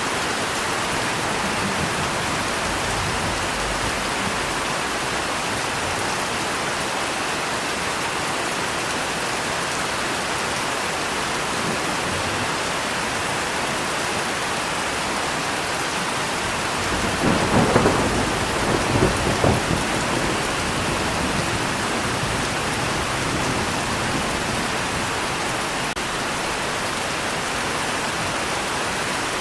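Steady rain with a peal of thunder a little past halfway, rising to several loud peaks over about three seconds before fading back into the rain.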